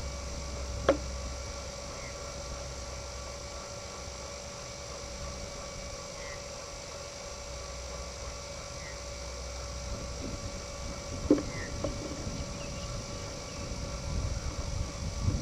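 Steady hum over faint outdoor background, with a few faint bird chirps and two short sharp clicks, one about a second in and one about two-thirds through. Wind rumbles on the microphone near the end.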